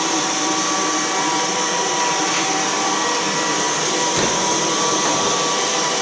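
Dyson cordless stick vacuum running steadily with an electric mop head attached, mopping and vacuuming a ceramic tile floor: a constant motor whine over airflow noise. A brief low knock comes about four seconds in.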